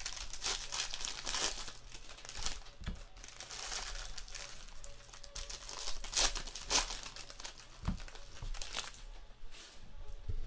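Foil trading-card pack wrappers being torn open and crumpled by hand, in an irregular run of crinkling bursts that dies down near the end.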